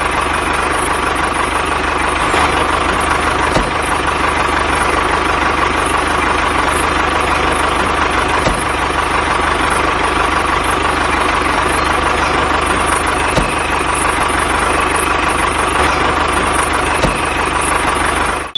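Mini tractor's engine running steadily at idle, a continuous even drone that stops abruptly at the end.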